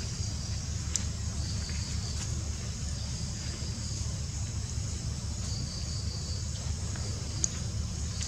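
Steady high-pitched chirring of insects, with a low steady rumble underneath and a couple of faint clicks.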